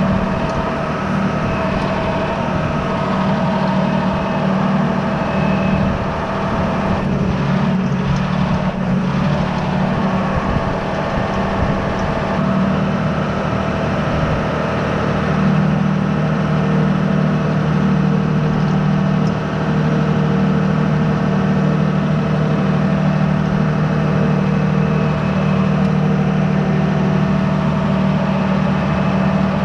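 John Deere 6155M tractor's six-cylinder diesel engine running steadily under light load, heard up close.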